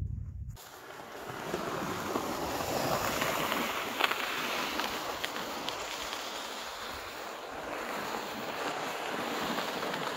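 Plastic ice-fishing sled sliding over lake ice, a steady scraping hiss that swells and eases, with a few sharp clicks in the middle.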